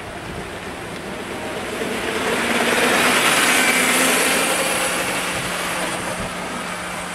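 Hydrogen fuel-cell electric go-kart passing close by: a rushing swell of tyre and drivetrain noise with a faint whine, building to its loudest about three seconds in and then fading away. A low steady hum sits underneath in the second half.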